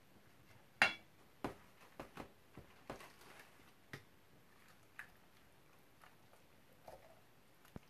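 Kitchen handling noises as sauce-coated cabbage and carrots are worked by hand: about ten scattered soft knocks and wet clicks, the loudest about a second in.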